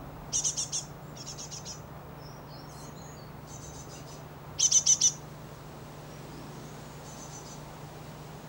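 Great tit calling: short, high chirps in quick runs of four or five notes, several times over, with the loudest run about halfway through. A steady low hum runs underneath.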